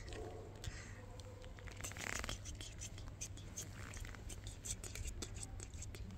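A cat shuffling and settling on a foil-lined cardboard shelter bed: soft scratching and rustling with scattered light clicks, and a longer rustle about two seconds in, over a low steady hum.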